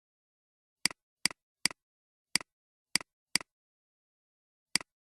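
Computer mouse clicks, seven in irregular succession with a short pause before the last, each a sharp press followed by a softer release.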